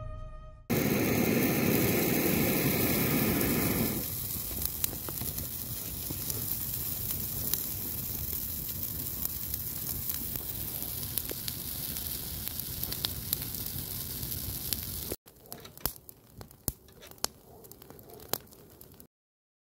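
Fire of dry grass and twigs burning, crackling with many sharp pops over a steady hiss. It starts with a loud rush for about three seconds, and after a cut near the end it drops to a quieter crackle before cutting off.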